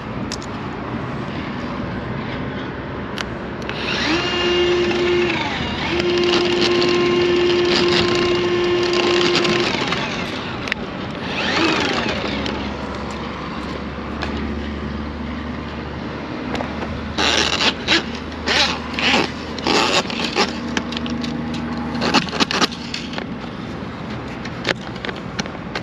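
Milwaukee M18 drain snake running, its motor giving a steady whine as the new cable spins. The whine breaks off briefly, sweeps in pitch, then settles lower. Later comes a run of sharp clicks and knocks, about two a second.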